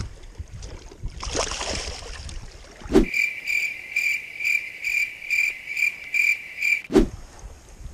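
Brief water splashing as a walleye is let go, then a spinning reel being cranked: a steady high whir with a tick about twice a second, each turn of the handle. A sharp thump about three seconds in and another near the end bracket the reeling.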